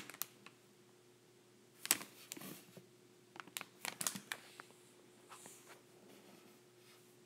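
Light clicks and knocks of gumpaste veiner molds being picked up and set down on a silicone mat, a few taps about two seconds in and a quick cluster a little later, over a faint steady hum.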